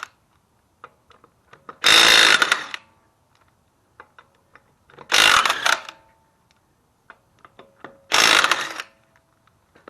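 Cordless impact wrench with a 13/16 socket zipping lug nuts loose on a car wheel: three short bursts of hammering about three seconds apart, with light clicks between them.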